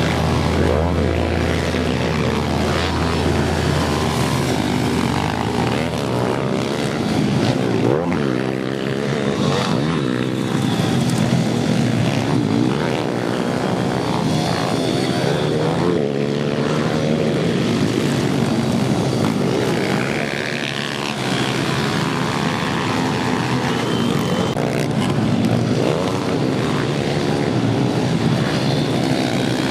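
Several pit bike engines running at once, revving up and down as the bikes race, with the pitch rising and falling with the throttle.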